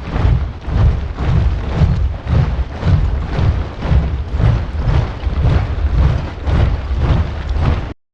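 A large body of soldiers marching in step: boots stamping together in a steady rhythm with heavy low thuds. The sound cuts out for a moment near the end.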